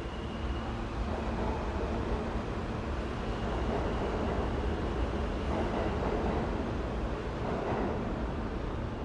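New York City subway station ambience: a steady low rumble of trains with swells of louder rail noise in the second half.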